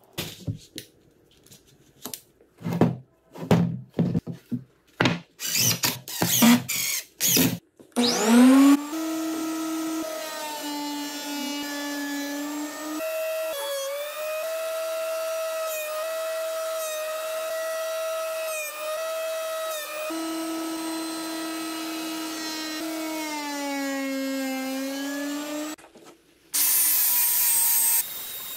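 Irregular knocks and clatter of clamps and boards being handled, then a Delta portable thickness planer starts up about eight seconds in and runs with a steady whine, its pitch sagging several times as pine boards feed through under load. Near the end, a short loud burst of a DeWalt angle grinder on wood.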